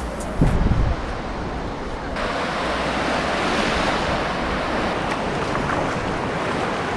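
Small waves washing in over a shallow sandy beach, a steady hiss of surf. A brief gust of wind hits the microphone about half a second in, and the surf is louder and hissier from about two seconds in.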